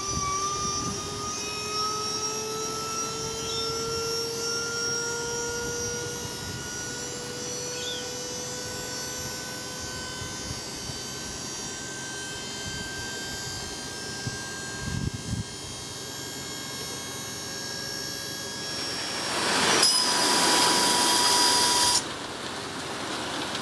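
Hydraulic pump of a ute tipper kit whining steadily as it raises a tray loaded with soil, its pitch rising slowly. About twenty seconds in, a louder rushing noise of the soil sliding off the tipped tray takes over for a couple of seconds, then cuts off suddenly.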